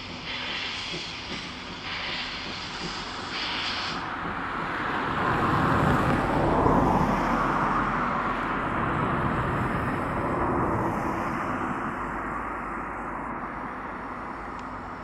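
C11 steam locomotive hissing steam in short spells. About four seconds in, a louder rushing noise swells up, falling in pitch, and fades slowly.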